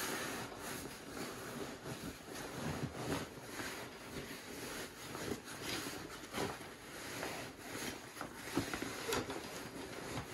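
Nylon fabric rustling irregularly as a loose sleeping bag is stuffed by hand into a backpack's main compartment and the pack's fabric is pulled and shifted.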